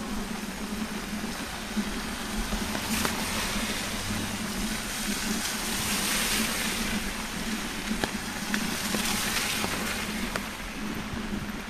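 A car passing on a wet road, its tyres hissing on the water and swelling to a peak about halfway through before fading. Steady rain noise underneath, with a few sharp ticks.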